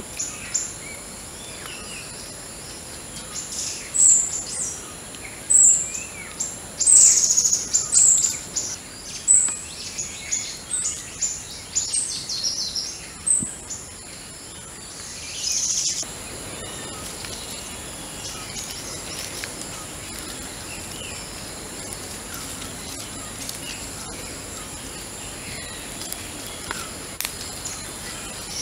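Forest ambience: birds singing in repeated short, high chirps through the first half, over a steady high-pitched insect drone that runs throughout. A short burst of noise comes just before the middle, and after it only the insect drone and scattered faint chirps remain.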